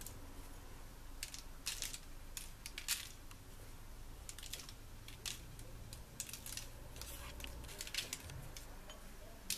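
Sesame seeds sprinkled by hand onto egg-glazed pastries on a parchment-lined baking tray: faint, irregular light ticks as the seeds and fingers hit the paper and dough.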